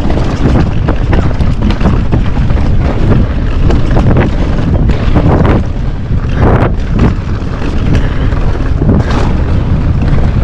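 Heavy wind buffeting an action camera's microphone on a fast downhill mountain-bike descent, with the tyres rolling over loose dirt and rock and frequent knocks and rattles from the bike hitting bumps.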